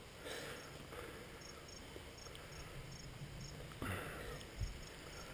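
Insects chirping in the grass: a high, faint chirp repeating steadily about two to three times a second.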